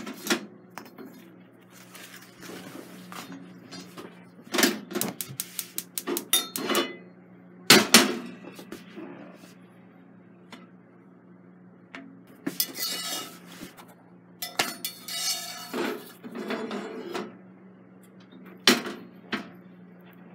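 Clatter of metal tongs and a cast-iron skillet knocking against a gas stove's steel grate, in scattered bursts, with the loudest knocks about eight seconds in and near the end. A steady low hum runs underneath.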